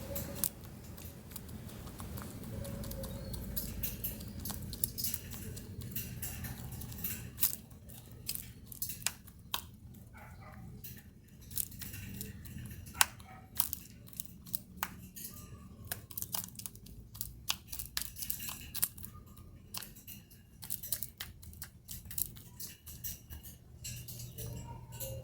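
Hen pecking at birdseed: irregular sharp taps of the beak picking up seeds, often several a second, over a low steady hum.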